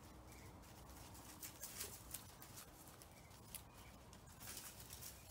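Near silence, with faint, scattered ticks and rustles of a small dog's paws moving through dry leaves and litter.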